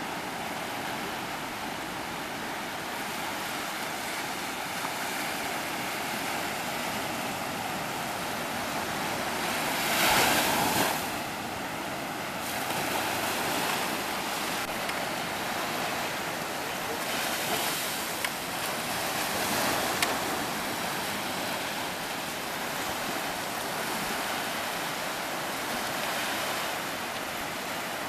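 Sea surf washing up onto a sandy beach: a steady rushing wash that swells loudest about ten seconds in and again, more gently, a little before twenty seconds.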